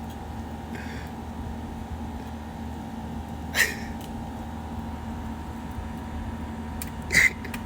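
Steady low hum of an air conditioner, broken by three short, sharp hissy bursts: a faint one about a second in, a louder one about three and a half seconds in, and a double burst near the end, the loudest of them.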